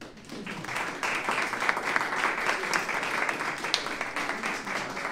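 Audience applauding, many overlapping claps that start at once, build within the first second and then keep going steadily.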